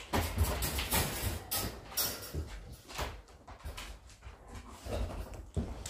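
Dogs' claws clicking and paws thumping on a hard floor amid people's footsteps, as irregular taps and knocks over low thuds.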